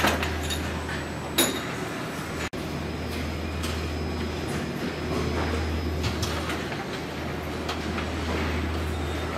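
Assembly-line machinery ambience: a steady low hum and rumble of conveyors and automated stations, with scattered mechanical clicks and one sharp metallic clank about a second and a half in.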